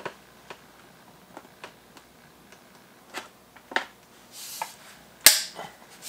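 Scattered plastic clicks and knocks as the handle tube is pushed into the body of an iLife EASINE W100 cordless wet-and-dry stick vacuum. One loud, sharp snap about five seconds in as the handle locks into place.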